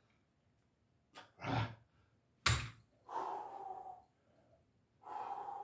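A man's heavy breathing while straining through the last reps of a set: quick forceful exhales, one sharp loud puff about halfway, then two longer strained grunts.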